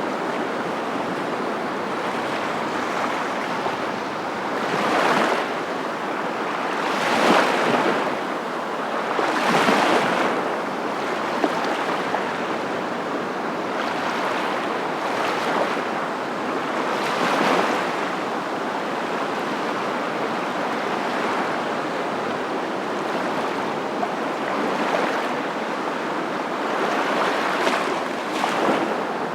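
Ocean surf: a steady rush of water noise that swells every few seconds as waves break.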